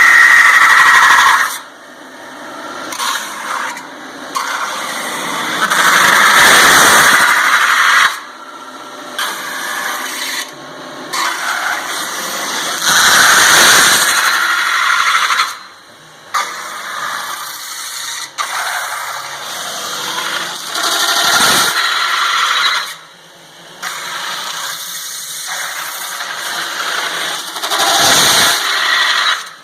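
Metal-spinning lathe forming sheet metal over a spinning mandrel, the forming roller squealing against the metal. The squeal swells loud several times for a second or two, with quieter running between.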